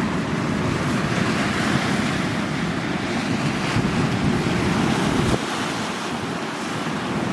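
Sea waves washing in, with wind buffeting the microphone; the low rumble of the wind drops away suddenly about five seconds in.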